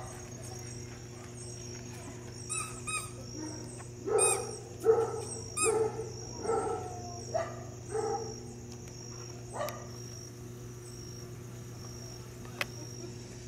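Cairn Terrier barking: two higher yips, then a run of about eight short barks over several seconds.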